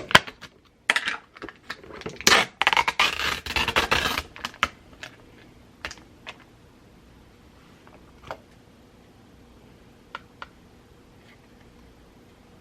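Clattering and clicking of small hard objects being handled: a dense run of taps and rattles for about three seconds, then a few scattered single clicks.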